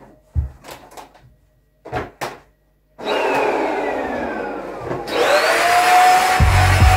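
A few short knocks in the first three seconds, then a vacuum cleaner starts suddenly and runs over a carpet. Its whine slides down, then about five seconds in jumps up and settles into a steady high whine. Music with a deep beat comes in near the end.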